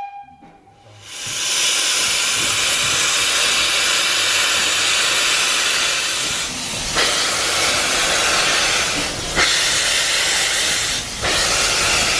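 Narrow-gauge steam locomotive venting steam from low down by its cylinders in a loud, steady hiss that starts about a second in, with brief dips near the middle and towards the end.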